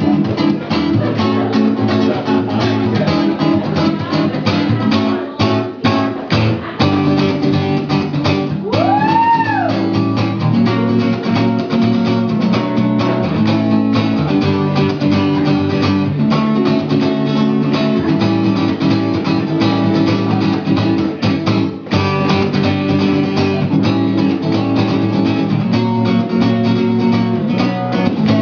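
Acoustic guitar playing an instrumental break of steady strummed and picked chords, with no singing. About nine seconds in, one note glides up and back down.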